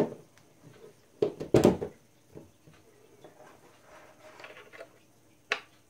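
Power adapter being plugged in by hand: two sharp plastic clacks about a second in as the plug goes into a power strip socket, then faint handling rustle and a single click near the end as the DC plug goes into the fence transmitter.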